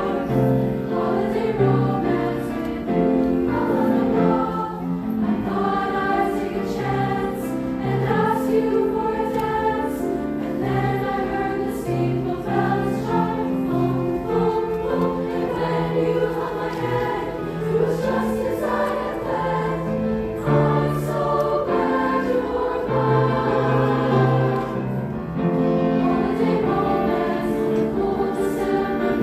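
A high school choir singing in harmony, holding long notes that change about once a second over a moving low part.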